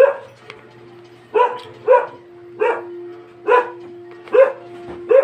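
A dog barking repeatedly, about seven short barks at an even pace, roughly one a second.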